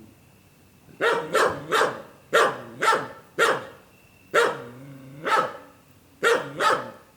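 A dog barking repeatedly: about ten sharp barks in quick groups of two or three, with short pauses between the groups.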